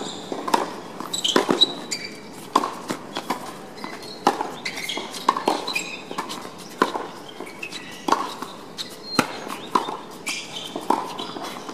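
Tennis rally on a hard court: sharp pops of racket strikes and ball bounces, about one or two a second at an uneven pace.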